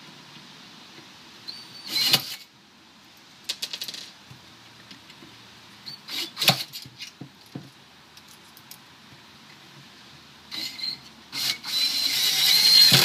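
Small metal hardware clinking and rattling: screws and mounting brackets for soft-close drawer glides being handled. Short clatters come every few seconds, with a quick run of rattles and a longer, louder clatter near the end.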